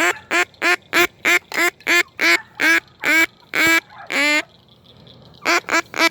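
Hand-blown duck call sounding a rapid string of quacks, about three a second, the last two drawn out longer. After a pause of about a second, a faster run of quacks starts near the end.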